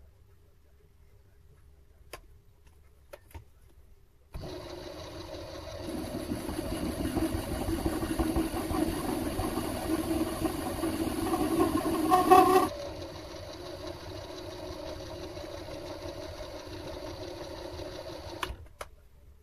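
Mini metal lathe switched on about four seconds in. For about seven seconds it runs louder and rougher as a carbide-insert tool cuts the face of the spinning part, then it runs on more steadily once the cut ends and is switched off with a click near the end.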